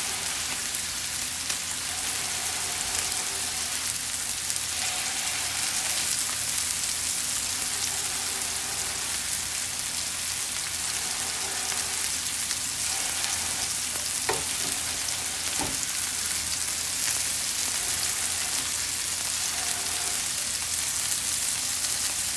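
Ground-beef smash burger searing on a hot griddle pan with a steady sizzle as a spatula presses the patty flat. Two sharp clicks come about two-thirds of the way through.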